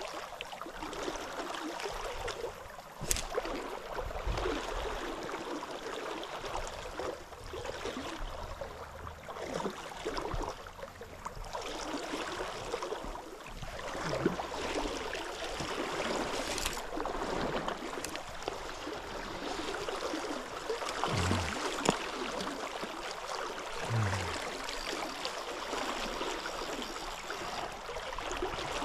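Flowing river water, a steady rushing noise, with a few sharp clicks along the way.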